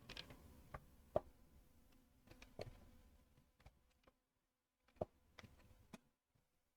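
Faint, scattered clicks and taps of plastic Lego Technic pieces being handled and pressed into place, the sharpest about a second in.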